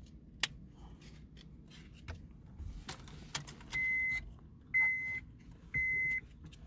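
Car warning chime beeping about once a second, a clear high beep each about half a second long, starting a little past halfway as the ignition comes on and the digital instrument display lights up. Before it, a few faint clicks of the display's plastic housing being handled.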